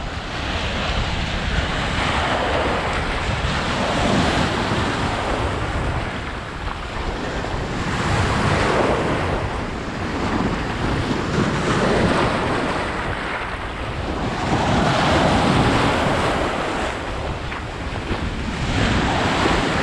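Ocean surf breaking and washing up the shore, swelling and easing every three to four seconds, with wind rumbling on the microphone.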